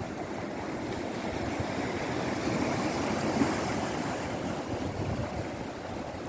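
Sea waves breaking and washing ashore: a steady rush that swells about halfway through and then eases off.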